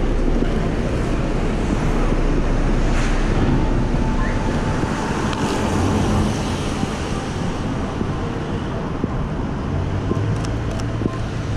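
Wet city street ambience in the rain: steady traffic noise and tyre hiss on wet roads, with wind rumbling on the microphone and a few brief ticks.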